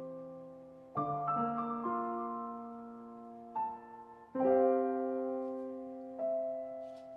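Slow background piano music: chords struck every second or two, each left to ring and fade.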